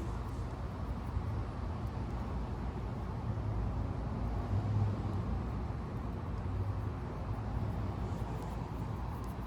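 Steady low background rumble and hum with no distinct clicks or knocks.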